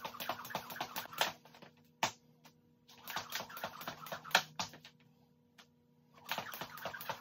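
Jump rope skipping on a concrete floor: a fast, even run of sharp ticks as the rope slaps the ground on each turn. It breaks off twice for a pause of a second or so, then starts again near the end.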